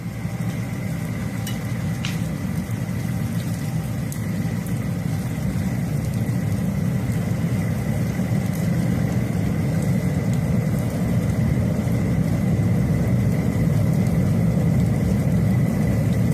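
Steady low rumble of strong wind buffeting the microphone, slowly growing louder, with a faint steady high-pitched tone underneath.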